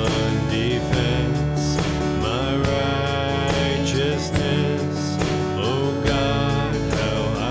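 Church praise band playing, led by strummed acoustic guitar, with a melody line over a steady beat.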